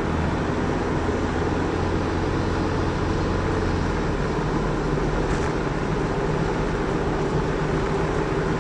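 Steady road and engine noise inside the cabin of a Ford Escort driving at highway speed, with the low engine hum shifting slightly about four seconds in.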